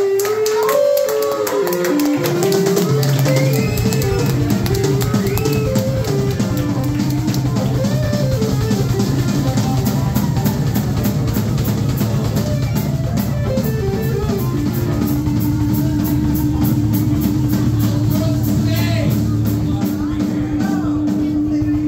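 Live rock trio playing an instrumental passage: melodic electric guitar lines over bass guitar and a driving drum kit. One long note is held through the last several seconds.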